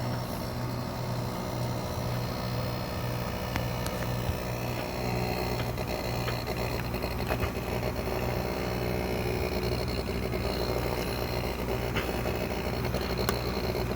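Midea inverter air conditioner running with a steady, slightly pulsing low vibration hum, with a few small knocks as a rubber pad is pushed in under it. The noise comes from the unit vibrating where its support does not reach it. Pressing the unit upward or wedging rubber under it stops the noise.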